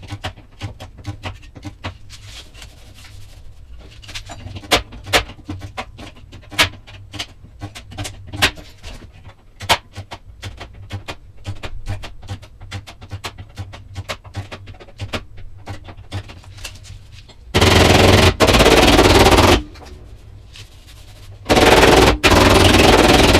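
Workshop tool noise: about seventeen seconds of many irregular clicks and knocks, then two loud bursts of a power or air tool running for about two seconds each.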